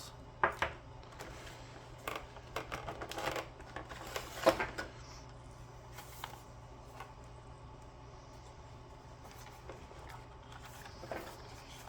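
Handling noises from a small plastic RC truck and its packaging: scattered clicks and rustles, with one sharp knock about four and a half seconds in.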